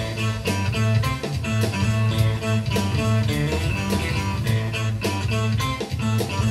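Live-looped instrumental music: an electric guitar played over layered loops, with a steady repeating bass line and a regular drum-machine beat.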